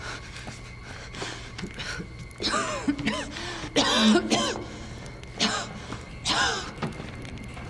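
A man coughing and groaning in about four short fits, his voice sliding in pitch within each, over a faint steady hum.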